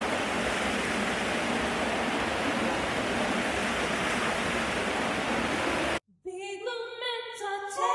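Steady rush of a waterfall that cuts off suddenly about six seconds in. After a short silence, music with held, stepping notes starts, like voices singing.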